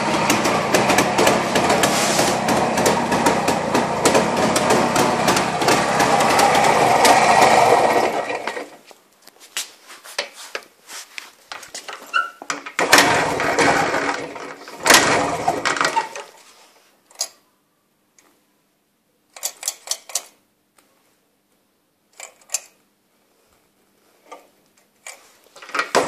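Jawa 350 type 360's two-stroke twin-cylinder engine running steadily on its first start after ten years standing, then stopping about eight seconds in. Scattered clicks and knocks follow.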